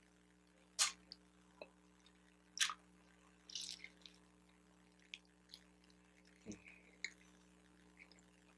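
Close-miked chewing and mouth sounds from eating a bacon, egg and cheese bagel sandwich: scattered wet smacks and clicks, the two sharpest about one second and two and a half seconds in.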